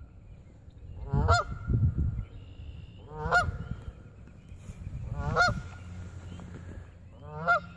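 Canada goose honking: four loud honks about two seconds apart, from an agitated, unhappy goose.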